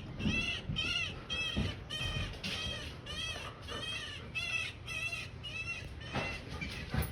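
Baby pileated woodpecker calling over and over, a steady string of short squawks about two or three a second, each rising and falling in pitch, growing weaker near the end.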